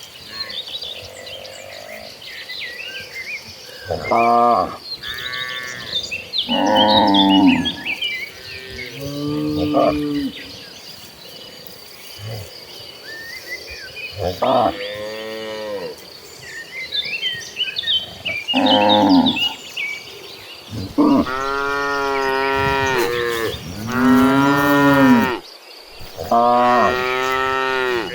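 Cattle in a herd mooing over and over, about nine separate calls of varying pitch. The last few, near the end, are longer and louder. Birds chirp faintly between the calls.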